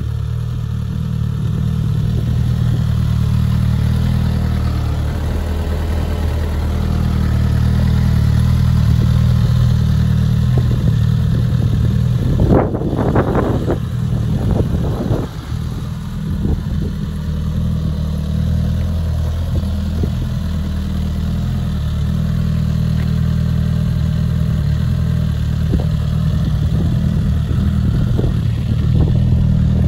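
2022 Suzuki GSX-S1000's inline-four engine idling steadily, with a cluster of sharper sounds about halfway through.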